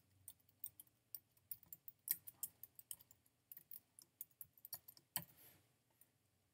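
Typing on a computer keyboard, a quick run of key clicks that stops about five and a half seconds in.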